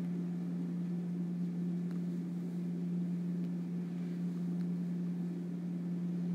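Steady low hum of room or recording-equipment noise, holding one even tone throughout, with a couple of faint ticks about two and three and a half seconds in.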